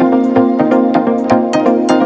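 Electronic background music: held synth chords over a steady beat.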